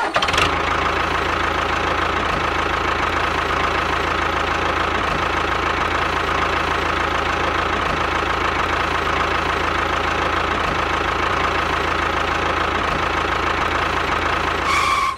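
Steady engine running sound with a fast, even chugging beat, going with a miniature DIY model tractor towing a gravel-laden trailer. It starts and stops abruptly.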